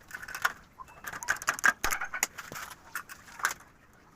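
Rapid, irregular light clicks and taps of hard objects, several a second, thinning out near the end.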